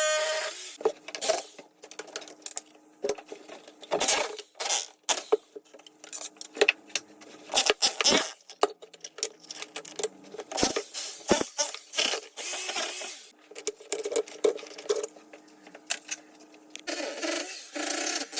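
Irregular sharp clinks, knocks and scrapes of ceramic tile being chipped off a wall and its pieces clattering down. A steady machine sound starts again near the end.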